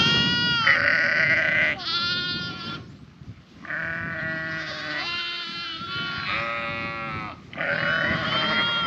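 A flock of Dorset ewes and lambs bleating, with many overlapping calls and a short lull about three seconds in. The ewes and lambs are calling back and forth, each with its own voice, to find each other.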